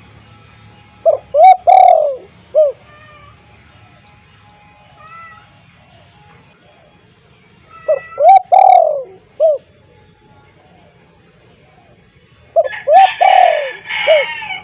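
Spotted dove cooing loudly, three phrases of about four hooting notes each, the second note drawn out, spaced several seconds apart. Faint high chirps of small birds sound between the phrases.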